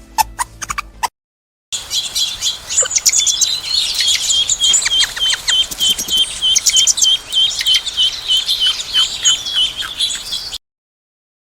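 Songbird chirping: a fast run of short, evenly repeated notes, about four or five a second, mixed with higher twittering, ending abruptly.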